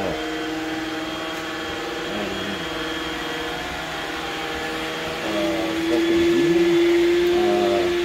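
iRobot Roomba 960 robot vacuum running: a steady motor whine with overtones that gets louder and slightly higher about five seconds in.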